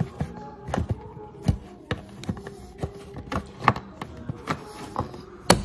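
Irregular clicks and knocks of a plastic interior trim cover being handled and pressed back into place in the car, about two or three a second, the loudest near the end.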